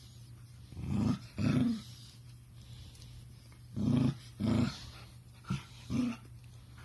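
A puppy making low, rough grunting growls that the owner likens to a purr or to pig noises. They come in pairs: two about a second in, two around four seconds, and two shorter ones near six seconds.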